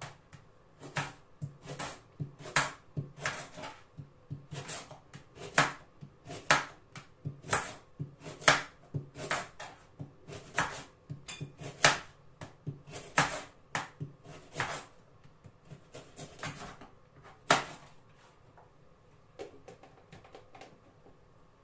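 Kitchen knife chopping a carrot on a plastic chopping board: sharp, irregular knocks of the blade on the board, about one or two a second, which stop a few seconds before the end.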